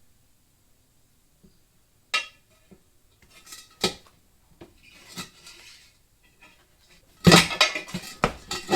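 Metal tire-changing tools clanking and scraping against the rim while a tire is forced onto the wheel by hand: a couple of separate ringing knocks, some scraping, then a loud run of clanks near the end.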